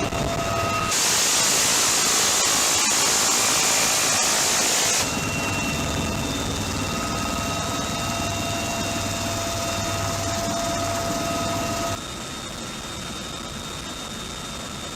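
Helicopter turbine whine and rotor noise, with a dense, continuous burst of M134 minigun fire about four seconds long starting about a second in. The overall sound drops and changes near the end.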